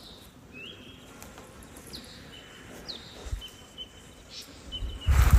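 Repeated high chirps from a small animal, each a short held note, about one a second, over faint outdoor background. A brief loud low rumble comes near the end.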